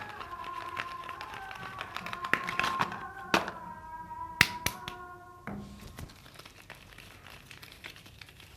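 Soap bar packaging being opened by hand: rapid crinkling and crackling of the wrapper with taps and clicks, two of them sharp and loud. Soft background music plays under it and stops a little past halfway.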